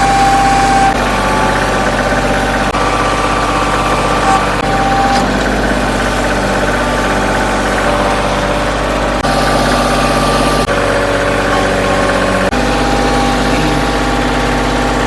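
Bobcat loader's engine running steadily under work, a low engine note with steady higher whining tones, shifting abruptly every few seconds.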